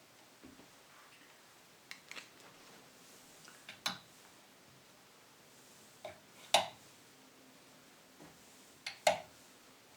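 Short, sharp clicks and knocks of small hard objects being handled and set down, several of them in pairs, the loudest about two thirds of the way through.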